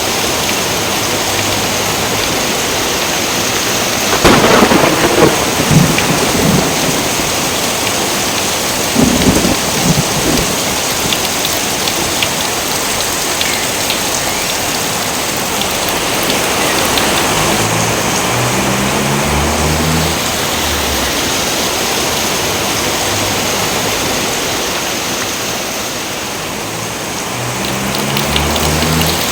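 Steady heavy rain with thunder: a loud thunderclap about four seconds in, rumbling on for a couple of seconds, and another crack about nine seconds in, with low rumbles later.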